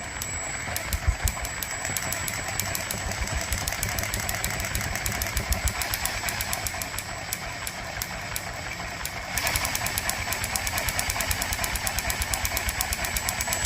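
ZR4 engine running on its first start, firing in rapid even pulses with a steady high whine over it. About nine seconds in it picks up and runs louder.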